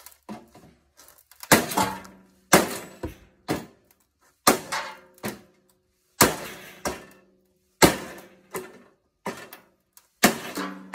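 Hammer blows on the metal of a washing machine being scrapped, about a dozen hard strikes roughly a second apart, each leaving a short metallic ring.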